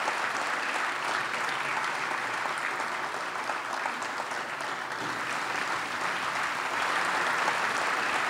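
Audience applauding steadily, a dense even clapping that holds throughout.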